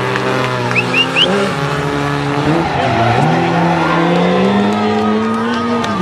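Rally car engine revving hard. The pitch dips about two and a half seconds in, then climbs steadily, with three short tyre chirps about a second in.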